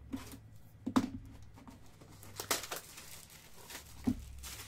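Hands handling a trading card pack taken from a cardboard hobby box: the pack wrapper crinkles and rustles, with two short knocks of the pack and box against the table, about a second in and again about four seconds in.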